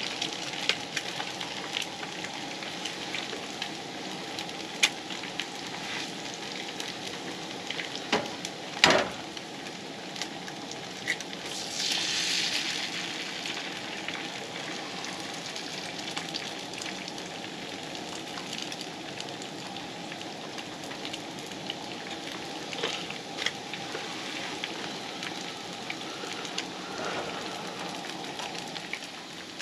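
Eggs and bread frying in a pan on a Coleman propane camp stove, sizzling steadily with scattered small pops. There is a sharp knock about nine seconds in, and a louder flare of sizzle a few seconds later.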